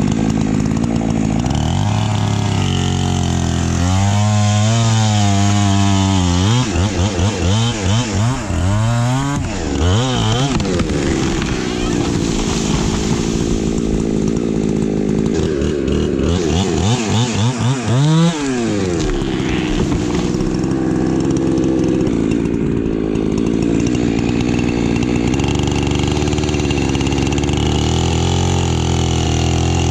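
Ported Husqvarna two-stroke chainsaw cutting through oak trunks at high revs, with the engine pitch rising and falling repeatedly between about 4 and 10 seconds in and again around 18 seconds in.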